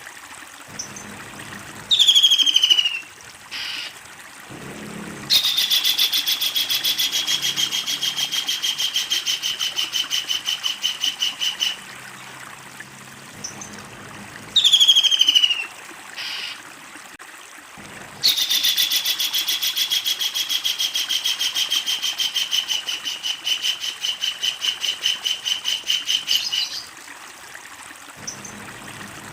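Kingfisher calling: a short falling note, then a long, fast series of evenly repeated chattering notes held for several seconds. The pattern comes twice, the second series longer.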